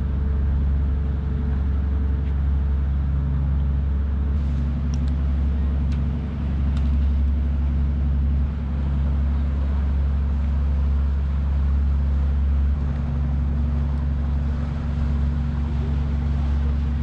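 A boat's engine running steadily, a low drone with a few steady low tones over it.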